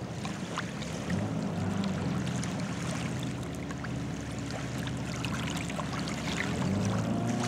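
Mini jet boat's Kawasaki 550 two-stroke jet-ski engine running at low throttle at a distance, mixed with a hiss of water and wind. Near the end the engine pitch starts to rise as it revs up again.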